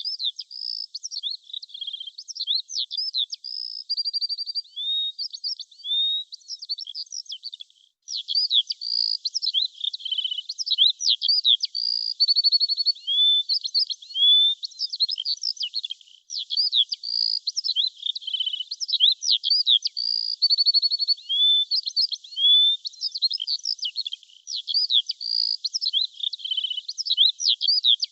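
Songbird chirping in quick high notes, sharp rising and falling chirps and short rapid trills. The same eight-second passage repeats over and over as a loop, with a brief gap at each join.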